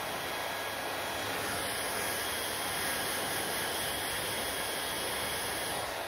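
Hand-held hair dryer running steadily, blowing air through hair. The rush of air gets a little louder and hissier from about a second and a half in, and falls back just before the end.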